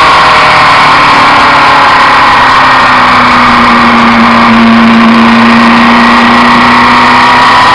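Suzuki Inazuma 750's inline-four engine, carburettors freshly adjusted, running on the move under heavy wind noise on a fork-mounted camera. The engine note dips slightly and rises again near the end.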